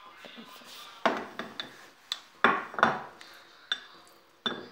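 Irregular sharp knocks and clinks, several of them with a short bright ring, as a utensil strikes a ceramic plate and a stainless steel pot while butter is scraped off the plate into the milk.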